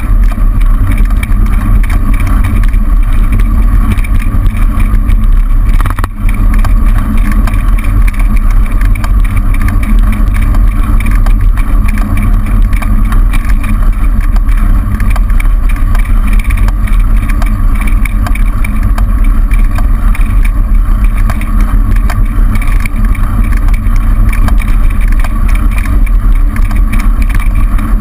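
Loud, steady wind rumble on a bicycle-mounted camera's microphone while riding, with the noise of passing car traffic mixed in; the rumble dips briefly about six seconds in.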